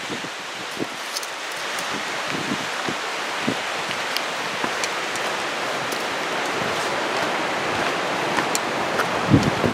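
Steady rushing water noise with faint scattered ticks, and a couple of low knocks near the end.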